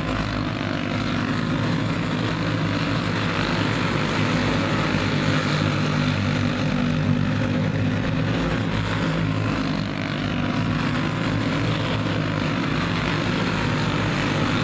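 A pack of dirt-oval racing karts with single-cylinder four-stroke clone engines running at racing speed together, a steady overlapping engine drone.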